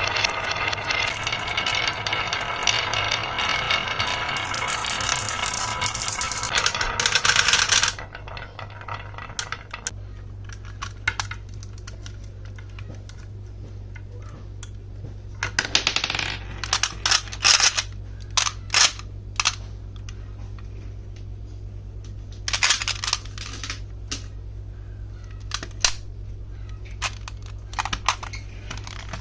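A toy vehicle's steady electronic sound effect, made of many pitched tones, cuts off suddenly about eight seconds in. After it, glass marbles click and clatter down a HABA wooden marble run, in scattered clicks with busier rattling bursts about halfway through and again later.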